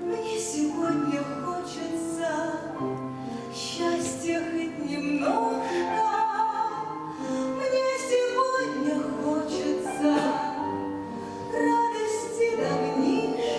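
A female voice singing a song in a held, lyrical style over instrumental accompaniment.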